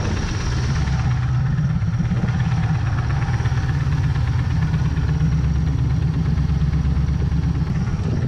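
Supercharged LS V8 in an open jet boat running steadily with the boat under way, a deep, even engine drone under a steady rush of noise.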